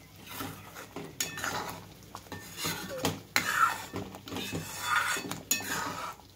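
Metal spatula scraping and clinking against a metal kadai while stirring a thick gravy, in irregular strokes.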